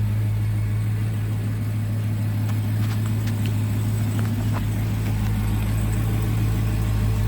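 Car engine idling steadily, a constant low hum, with a few faint clicks around the middle.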